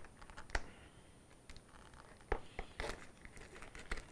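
Scissors cutting the plastic shrink-wrap on a cardboard box, with faint crinkling of the film and a few sharp clicks scattered through.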